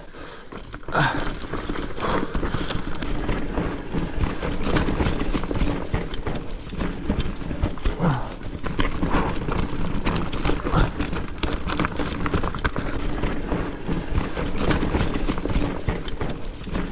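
Marin Rift Zone 3 full-suspension mountain bike clattering at speed down a rough, root- and rock-strewn trail, a continuous rapid rattle of knocks from tyres, frame and suspension over the ground. The clatter picks up about a second in.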